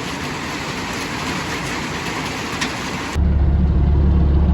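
Heavy rain with a little hail hitting a roof: a steady hiss with a few sharp ticks. About three seconds in it cuts off abruptly to an engine idling with a steady low hum.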